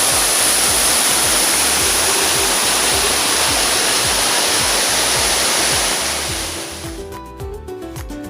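Steady loud rush of water falling at a waterfall, over background music with a steady low beat. The water fades out about seven seconds in, leaving the music.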